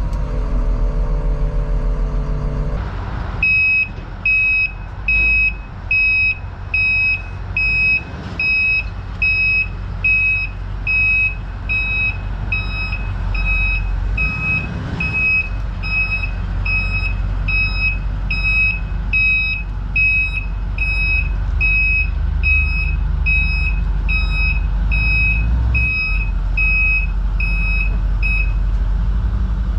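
Backup alarm of a reversing plow truck beeping steadily, a little faster than once a second, over a diesel engine's low rumble; the beeping starts about three seconds in and stops near the end. Before it starts, a pitched whine from the machinery.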